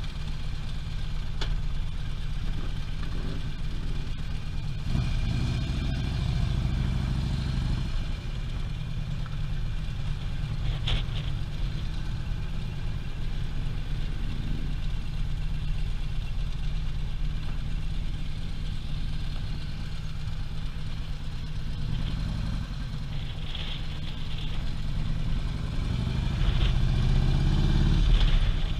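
Harley-Davidson touring motorcycle's V-twin engine running low and steady as the bike rolls along at low speed, with a few short clicks. Over the last few seconds it gets louder as the bike speeds up.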